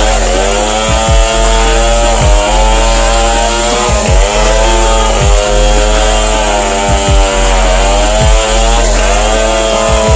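Modified Stihl chainsaw with a 1.7 m bar, cutting lengthwise through banyan wood at high revs. The engine note dips briefly and recovers every second or two as the long chain takes load in the cut.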